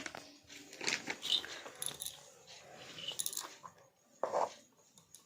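Small plastic baby toys being gathered and put away, with a few irregular clicks and clatters and some rustling between them.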